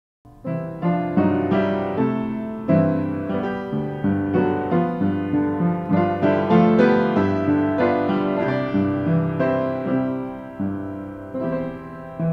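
Piano music begins out of silence just after the start and plays on as a flowing run of struck notes and chords, growing softer near the end.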